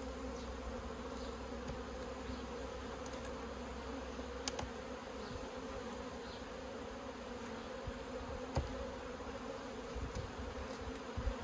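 Honeybees buzzing in a steady hum from an opened, crowded hive, with a few light knocks about a third and three-quarters of the way through.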